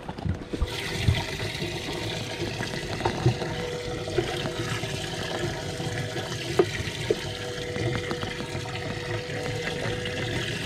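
Bass boat livewell pump running, a steady rush of water pouring into the livewell with a faint motor hum. It comes on suddenly just under a second in, with a few light knocks over it.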